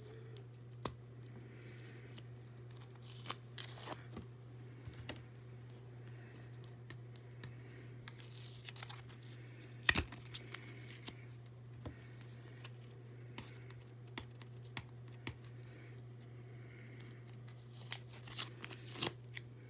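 Packaging being torn open and handled while trading cards are unpacked: scattered short tearing and crinkling rustles and small clicks, busier near the end, over a steady low hum.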